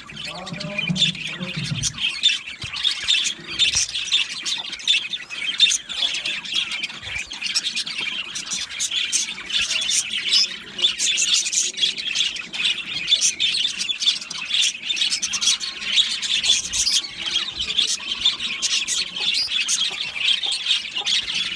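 A flock of budgerigars chattering, chirping and squawking over one another in a continuous, busy stream of short rapid calls.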